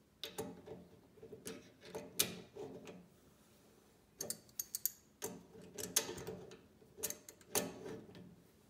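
Adjustable crescent wrench clicking and scraping on a faucet's brass retaining nut as it is snugged down in short turns, in about five separate bursts of clicks with short pauses as the wrench is reset.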